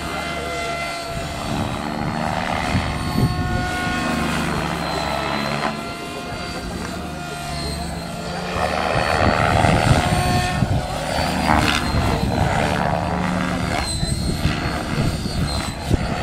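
Radio-controlled 3D helicopter in aerobatic flight: the motor and rotor blades whine and whoosh, shifting in pitch and surging in loudness as it flips and reverses, loudest a little past halfway.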